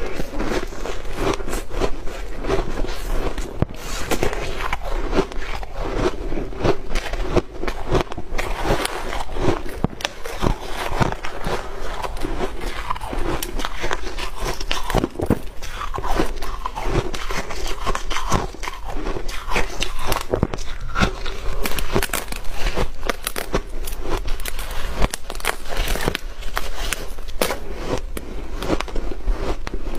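Refrozen shaved ice crunching close to the microphone as it is bitten, chewed and broken apart by hand: dense, continuous crisp crackling with no pauses.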